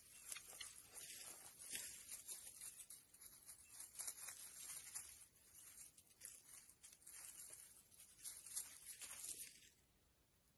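Faint rustling and crackling of dry grass as meerkats scurry over it, with many short scratchy crackles. It dies away just before the end.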